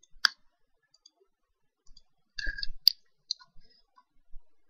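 A few computer mouse clicks: a sharp one about a quarter second in and another near three seconds, with fainter small clicks and handling noises around them.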